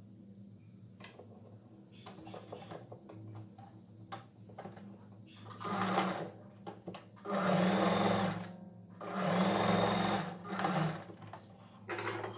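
Electric sewing machine stitching in short runs of a second or so, with light handling clicks between runs, as the blouse lining is sewn to the main fabric at the marked points.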